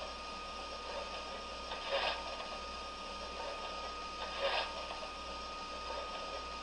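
MTH O scale steam locomotive's onboard sound system playing its standing-still sounds: a steady hiss with a faint steady tone, broken by a short puff of hiss about every two and a half seconds.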